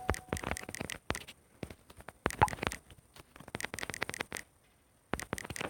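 Scattered light taps and clicks at an irregular pace, with short quiet gaps: a finger tapping on a phone, typing a message.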